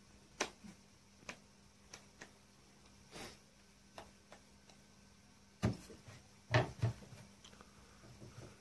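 Scattered soft taps of hands patting and shaping a ball of dough, with two louder thumps about two-thirds of the way in as the dough is pressed down on a wooden board.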